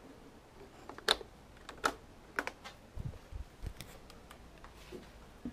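Hard plastic audio equipment being handled and moved about: a string of about ten sharp, irregular clicks and knocks, the loudest about a second in.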